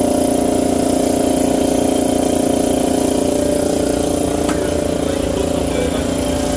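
Steady machine hum with a constant pitched drone and a faint high whine. One faint click comes about four and a half seconds in.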